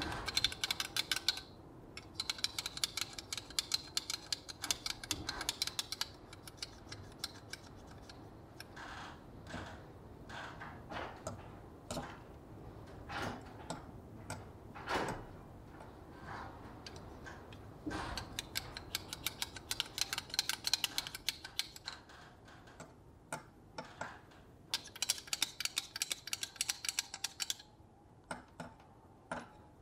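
Steel shaft of a Torx T20 screwdriver clicking and rattling rapidly in the slots of a plastic magnetizer block as it is stroked back and forth to magnetize it, in several runs of a few seconds each. Scattered single clicks and taps come between the runs.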